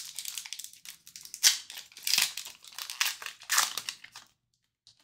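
Foil wrapper of an Upper Deck SP Authentic hockey card pack crinkling and tearing as it is opened by hand. It comes in several loud bursts and stops a little over four seconds in.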